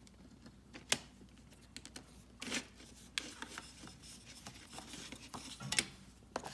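A plastic CD jewel case and its paper booklet being handled: a few sharp plastic clicks, about a second in, near the middle and near the end, with short paper rustles between them.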